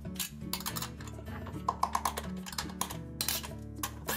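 Background music with a string of light clicks and metallic clinks from bolts and tools being handled on the washer's steel drive housing, including a quick cluster of ringing clinks about two seconds in.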